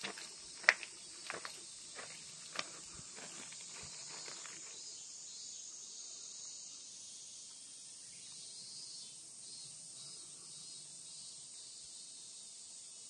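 Insects trilling steadily in the surrounding trees, a continuous high-pitched buzz. In the first few seconds a handful of sharp clicks and steps, the loudest under a second in, as someone walks and handles the phone.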